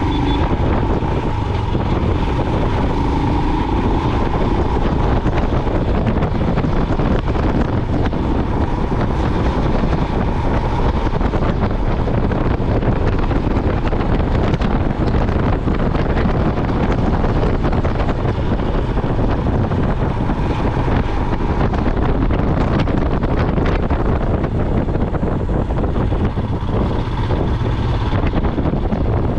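Heavy wind noise on the microphone of a moving motorcycle, over the steady running of a Royal Enfield Himalayan's single-cylinder engine.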